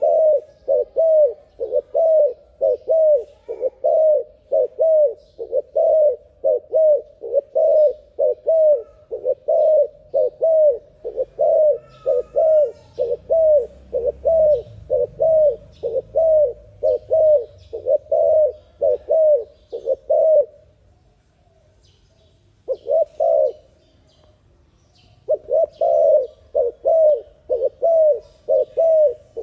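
Dove cooing in a fast, even run of short coo notes, about two a second. It pauses about twenty seconds in, gives a brief burst, and resumes near the end, with faint chirps from other small birds behind it.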